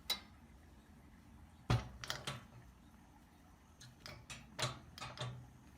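A few light clicks and knocks in irregular clusters, the sound of things being handled in a small room.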